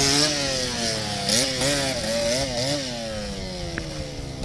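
Small dirt bike engine revving: a run of quick throttle blips about a second in, over a pitch that falls away steadily as the engine eases off.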